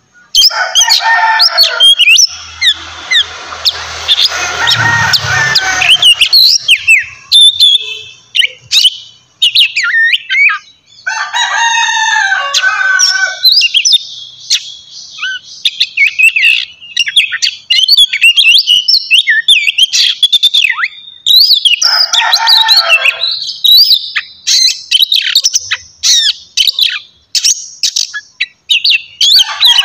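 Oriental magpie-robin (kacer) singing loudly: a fast, varied run of whistles and chirps, with a harsh rasping passage in the first few seconds and lower, rougher calls about a third of the way in and again past two thirds.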